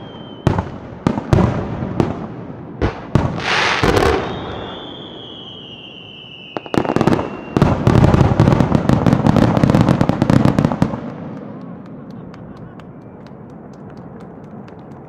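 Aerial fireworks display. A string of sharp shell bursts comes in the first four seconds, then a dense rapid barrage of bangs and crackling runs from about seven to eleven seconds and dies away into faint crackle. In between, a thin high tone slides slowly down in pitch.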